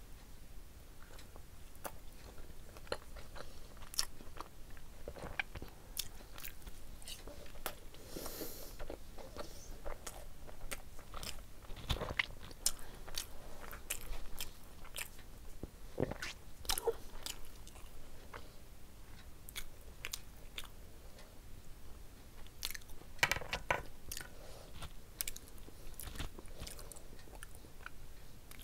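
A person eating close to the microphone: chewing and biting on a curried boiled egg, with many short sharp mouth clicks and smacks scattered through.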